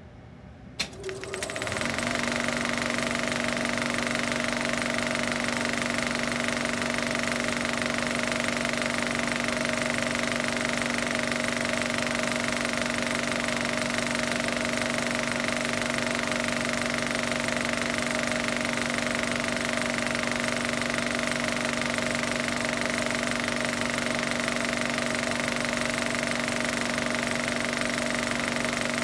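Steady machine-like drone that starts with a click about a second in: a fixed low hum and a higher whine over a noisy rush, unchanging in pitch and level.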